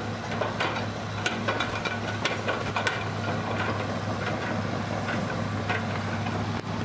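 Crawler excavator's diesel engine running steadily under work, with scattered sharp knocks and clanks in the first half as the machine digs and swings its loaded bucket.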